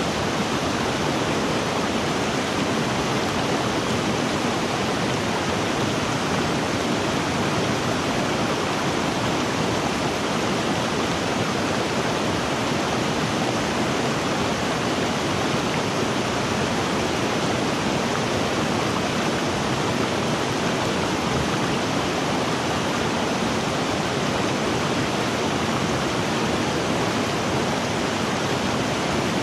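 River water rushing and splashing over rocks, a steady, even sound that does not change.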